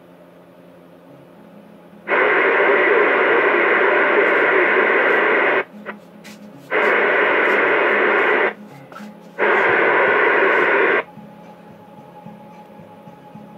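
CB radio receiver on channel 6 (27.025 MHz) opening its squelch on incoming signals three times, each time giving a loud rush of static hiss for one to three seconds that cuts in and out sharply. A faint steady hum lies underneath between the bursts.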